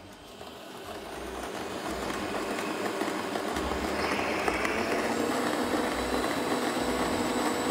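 Stand mixer kneading a soft dough in its metal bowl, the motor running steadily with the dough hook churning. It grows louder over the first few seconds, then holds even.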